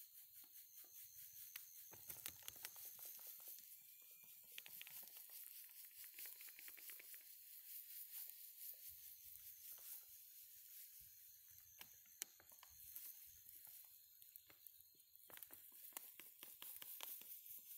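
Faint patter of granules poured from a plastic sack into a drum of liquid, with the plastic sack crinkling.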